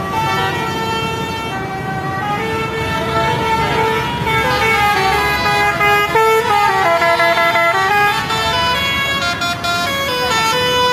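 Lorries' Basuri musical horns blaring together: several held horn tones overlap and step from pitch to pitch like a tune, over a low steady rumble of traffic.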